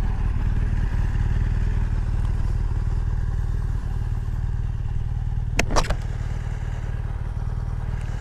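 BMW R1200GS Rallye's boxer-twin engine idling steadily. Two short, sharp sounds come a little past halfway.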